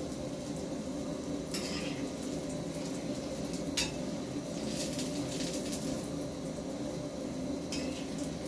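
A cooking utensil scraping and clinking against a pan while chapatis cook, four short times, over a steady low hum.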